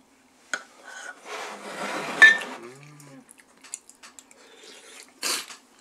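Metal spoons clinking and scraping against ceramic soup bowls and plates while eating, with a longer scraping rustle in the middle that peaks in a sharp click.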